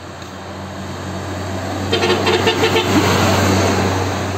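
A cargo truck's engine drone growing louder as the truck approaches and passes close by. About two seconds in, its horn sounds a quick run of short toots.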